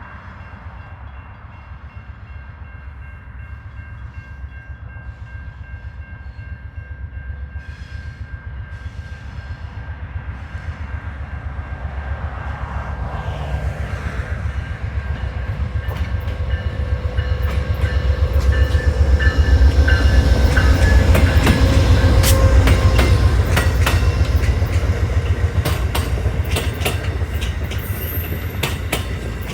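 Train passing close by: a deep diesel rumble builds to its loudest about twenty seconds in, with the wheels clacking rhythmically over rail joints through the second half.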